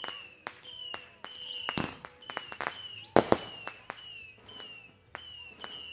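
Fireworks going off: a string of sharp bangs and pops, the loudest about three seconds in, mixed with short falling whistles repeating about twice a second.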